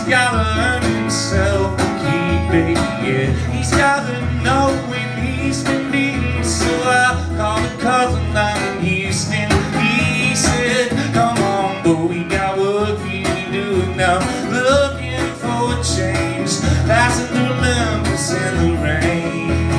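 Live solo country-folk song: steel-string acoustic guitar played with a steady pulse of bass notes, and a man's voice singing over it.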